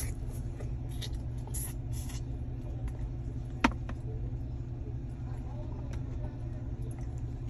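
Steady low rumble of a car heard from inside the cabin, with one sharp click about three and a half seconds in.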